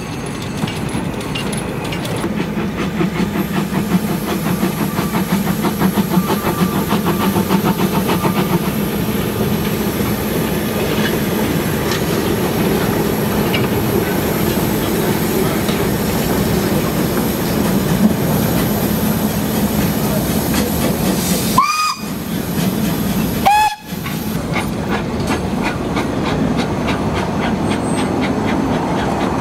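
Narrow gauge steam locomotives working trains past, with rapid exhaust beats, hissing steam and the clatter of carriages on the rails. Two short steam whistle blasts sound about two-thirds of the way through.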